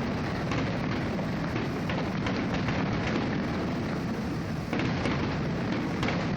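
Aerial fireworks bursting in a rapid, continuous barrage: a steady rumble of booms overlaid with many sharp cracks, with a fresh loud burst a little past halfway.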